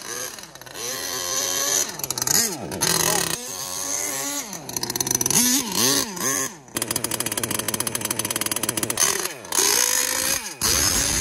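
Small two-stroke petrol engine of an HPI Savage XL Octane RC monster truck being revved up and down in repeated throttle blips, with stretches of fast running between them, as it warms up.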